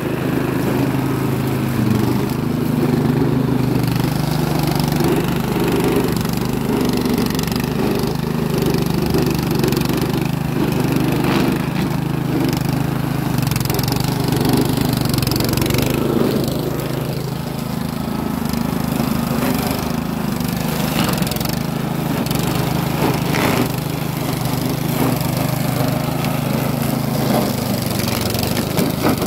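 Eurosystem walk-behind flail mower running steadily under load, its petrol engine holding a constant speed as it cuts through tall grass.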